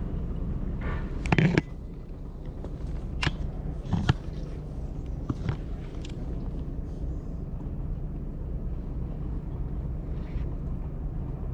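A low, steady motor hum, with a few sharp clicks and knocks in the first half.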